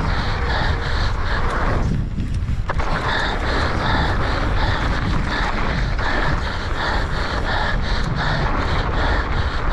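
Wind buffeting the action camera's microphone and tyre rumble on a fast mountain-bike descent. Over it comes the rider's heavy, rapid panting at about three puffs a second, which breaks off for under a second about two seconds in.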